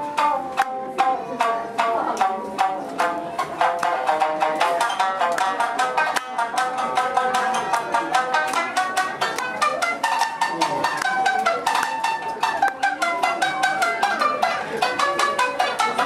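Tsugaru shamisen played solo: a fast, unbroken run of plucked notes, each with a sharp percussive strike.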